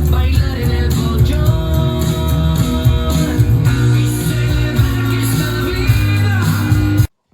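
Rock music with guitar, heavy bass and singing, which cuts off suddenly near the end.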